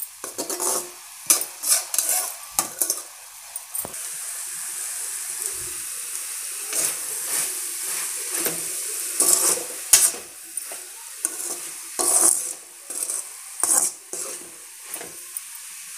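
A spatula stirring and scraping amaranth greens around a metal kadai, with irregular clinks and scrapes against the pan over a steady frying sizzle as the last of the water cooks off.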